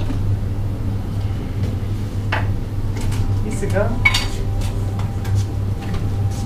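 Countertop blender running steadily, blending soaked cashews and water into a cashew cream, with a clatter about four seconds in.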